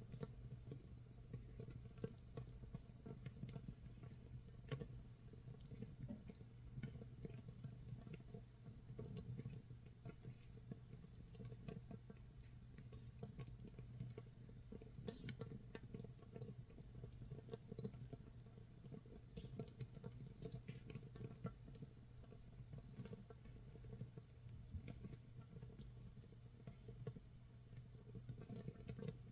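Makgeolli starter brew (mitsul) fermenting in an earthenware jar, about 24 hours in: a faint, steady crackle and patter of countless tiny bubbles popping, like light rain or rice crust toasting. The sound of active fermentation giving off gas.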